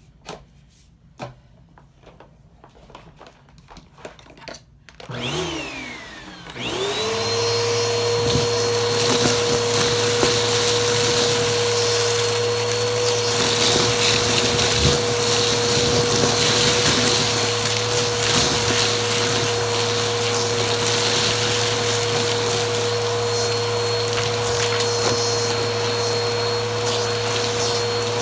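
Vacuum cleaner switched on about six seconds in: its motor spins up with a rising whine, then runs steadily with a constant whine and hum. Before it starts there are a few quiet clicks and knocks.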